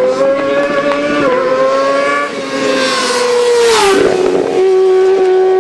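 Racing sport bike engine at high revs, its pitch climbing with a brief dip about a second in, then dropping sharply as the bike passes close, about four seconds in, with a rush of noise. After that a steady high engine note holds.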